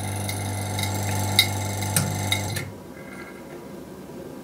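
Vacuum pump motor of a valve vacuum leak tester running with a steady hum during its calibration cycle, with a couple of light clicks, then shutting off about two and a half seconds in.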